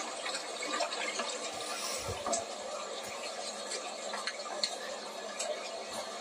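Close-up wet mouth noises of someone nibbling a piece of mint chocolate, with many small clicks and crackles.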